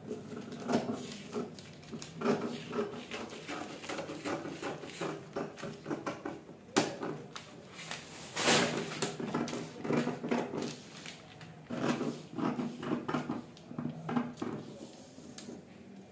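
Scissors cutting through brown pattern paper: a run of irregular crunching snips, with a louder burst about eight and a half seconds in.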